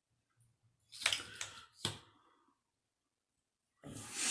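A couple of short, sharp clicks about a second in, from makeup items being handled, then a louder, short noisy burst near the end.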